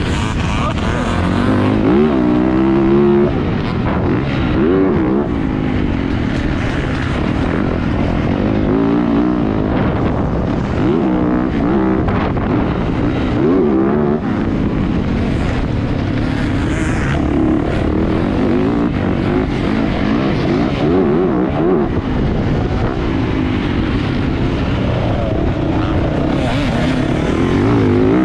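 Dirt bike engine on a motocross track, revving up and falling back over and over as it accelerates and shifts through the gears.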